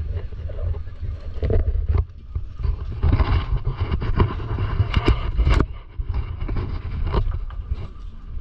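Wind rumbling on a handheld camera's microphone, with faint voices of passers-by and a few sharp knocks about five seconds in.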